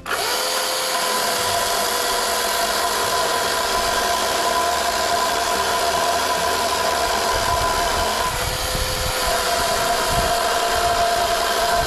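Two-stroke chainsaw running steadily at high revs, cutting in abruptly and holding an even pitch.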